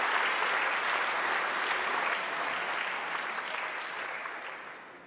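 Audience applauding after a live song, the clapping dying away gradually from about two seconds in.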